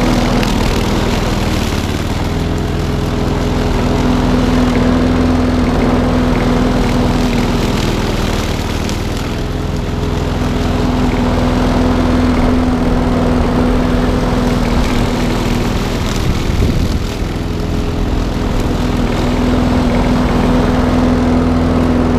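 Petrol engine of a McCulloch self-propelled rotary lawnmower running steadily while the mower cuts grass, its note swelling and easing slightly with the load.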